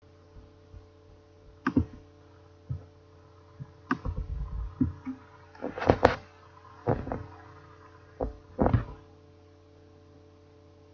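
A steady low hum with a string of irregular, sudden thumps and knocks, the loudest about six seconds in.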